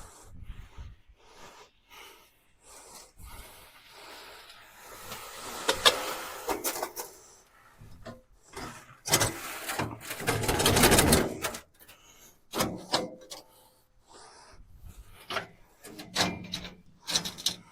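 Wet concrete mix being poured and scraped out into a slab form: short scrapes and knocks, with a longer sliding rush about a third of the way in and a louder one a little past halfway.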